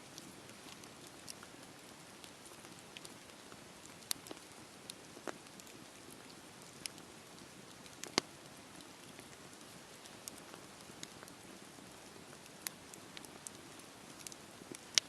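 Campfire burning: a steady low hiss of flames with scattered sharp crackles and pops of burning wood, the loudest pop about eight seconds in and another just before the end.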